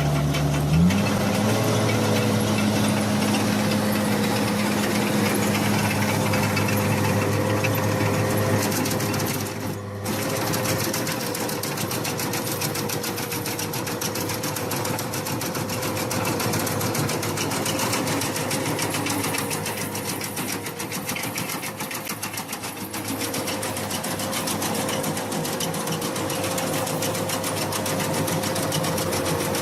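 Construction machine engine running steadily with a fast, even mechanical clatter, briefly cut off about ten seconds in.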